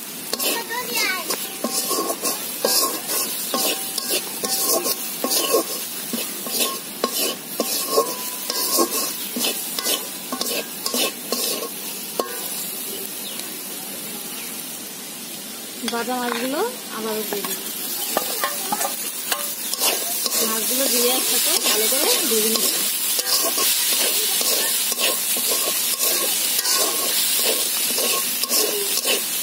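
Metal spatula scraping and knocking against a metal wok while sliced onions and chilies fry in oil with a sizzle. A little over halfway through, the sizzle grows louder and steadier.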